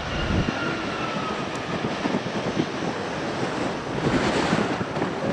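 Boeing 787-9 airliner's jet engines running, heard through heavy wind buffeting on the microphone. A faint whine sinks slightly in pitch over the first couple of seconds, and the noise swells again about four seconds in.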